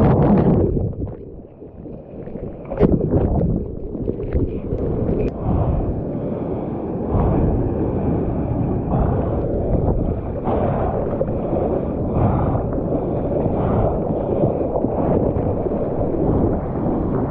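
Ocean water sloshing and splashing against a bodyboard and wind buffeting a close point-of-view camera microphone as the rider paddles in the surf. The level dips briefly about a second in, then settles into a steady low wash with a few sharper splashes.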